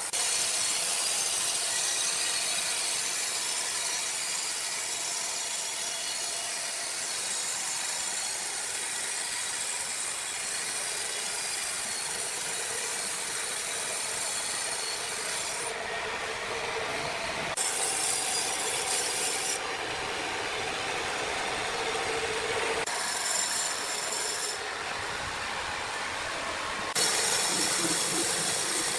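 Power saw cutting through wood: a steady hissing rasp whose tone changes abruptly several times in the second half.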